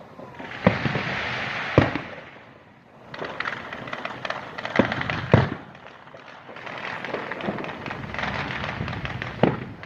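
Fireworks display: about five sharp bangs of bursting shells, with stretches of crackling between them.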